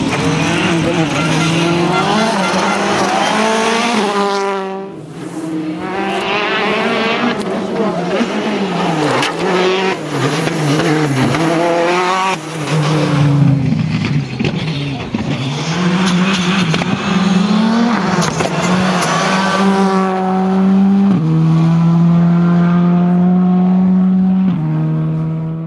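Rally cars at full speed on a special stage: engines revving hard, the pitch climbing and then dropping at each gear change, again and again. Near the end one engine holds a steady high note that steps in pitch twice.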